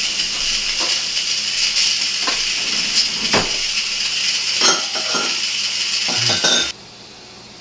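Instant Pot pressure cooker venting steam on quick release: a loud, steady hiss from the release valve, with a few clinks of cups and a ladle. The hiss cuts off suddenly near the end.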